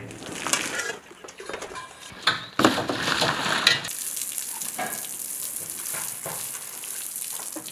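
A metal basin clattering and scraping as water is scooped and splashed, then from about four seconds in a steady hiss of water spraying from a hose onto a brick wall.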